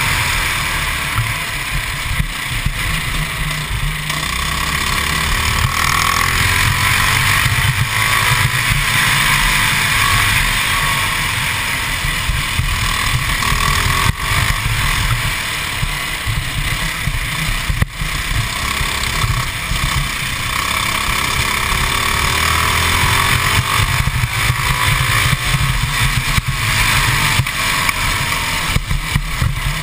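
Modified 196cc GX200 single-cylinder four-stroke kart engine running hard under load, its revs climbing and dropping again and again as the kart laps the track.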